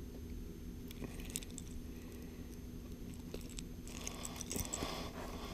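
Faint light metallic clicks and jingles of a suspended jerkbait and its treble hooks being handled while unhooking a small largemouth bass, scattered and busier near the end, over a low steady hum.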